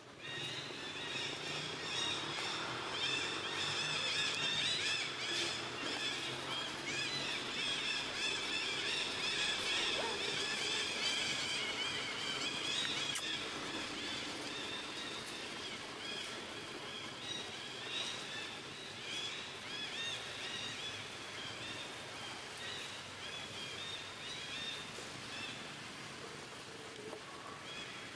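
Macaques squealing and screeching: a steady stream of short, shrill, high calls, loudest over the first half and easing off later.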